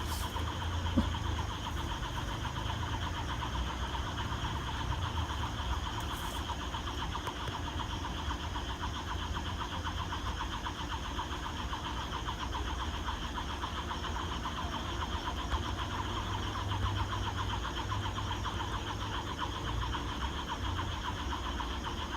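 Night chorus of frogs and insects calling continuously in dense vegetation: a constant shrill, rapidly pulsing trill with a steady low rumble underneath.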